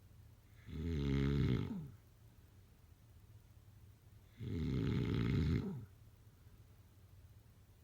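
A sleeping person snoring: two long snores, each lasting a little over a second, about three and a half seconds apart.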